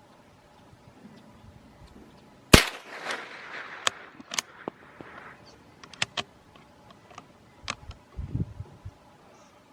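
A single .22 LR rifle shot about two and a half seconds in, followed by a run of smaller sharp clicks.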